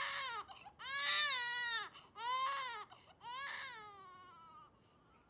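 Infant crying: four wails, each rising and falling in pitch, the last one longer and fading out.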